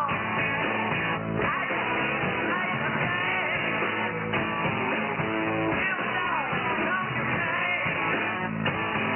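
Rock song with singing and guitar, received over shortwave radio in upper sideband, so it sounds narrow and thin, with nothing above about 3 kHz.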